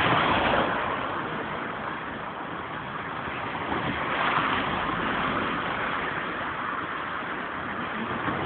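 Steady rushing noise with no distinct events, slightly louder at the start and swelling again about four seconds in.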